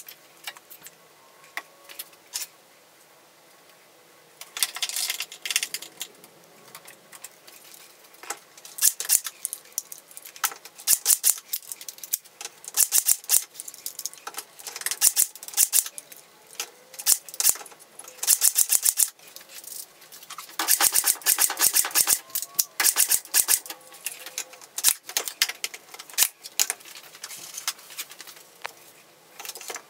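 Workshop assembly noises: repeated bursts of rapid clicking and rattling, each lasting a second or so, with the longest and loudest run about two-thirds of the way through.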